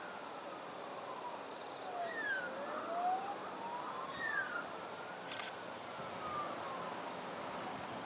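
Endeavour diesel railcar's drivetrain whining, its pitch slowly rising and falling over several seconds, over a steady rushing noise. Short falling chirps sound about two seconds in and again after four seconds.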